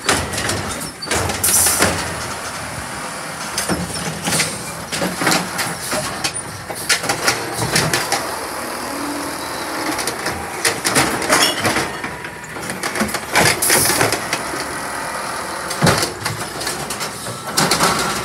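Autocar ACX garbage truck collecting recycling: engine running, with many sharp clanks and rattles through it.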